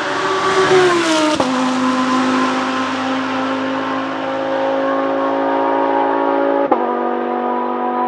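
Audi R8 LMS GT3 Evo II's 5.2-litre V10 racing engine passing by at speed, its note dropping in pitch as it goes past about a second in, then pulling away with a steady, many-toned note. Near the end a sharp crack and a small step in pitch mark a gear change.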